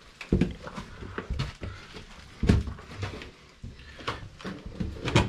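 Scattered knocks, scuffs and thumps at irregular intervals, with the sharpest one just before the end.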